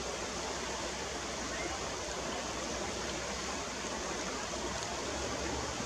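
Steady rush of river water running over stones in a shallow stretch.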